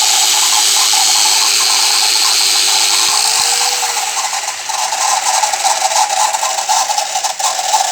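An angle grinder runs steadily, spinning the front wheel of a Yamaha TMAX 500 scooter. The wheel gives off a steady howl, the fault that shows above 40 km/h, and the owner is hunting for its cause among the wheel's rotating parts. From about halfway the sound turns rougher and rattly.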